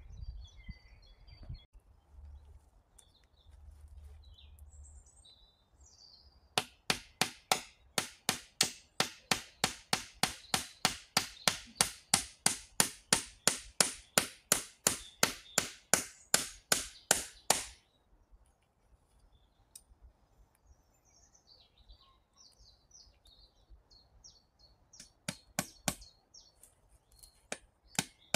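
A rapid, even series of sharp strikes of a hand tool on wood, about four a second for some eleven seconds from about six seconds in, with a few more strikes near the end. Birds chirp in the quiet stretches between.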